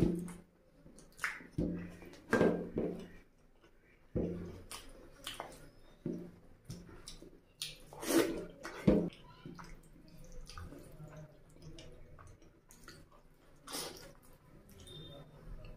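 Close-miked eating sounds: fingers squelching through rice and oily mutton curry, then mouthfuls being chewed with wet smacking and slurping. They come in short, uneven bursts, loudest in the first few seconds and again around the middle.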